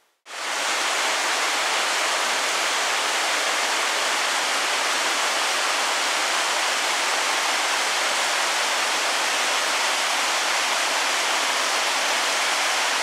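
Stream water rushing over rocks in small cascades: a steady, full rush that fades in within the first half-second.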